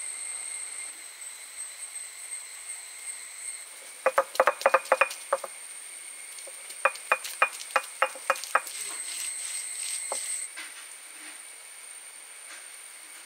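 Stone roller of a traditional grinding stone knocking on the stone slab, crushing ginger and garlic, in two runs of quick sharp strikes: the first about four seconds in, the second a little after the middle. A steady high-pitched drone runs underneath.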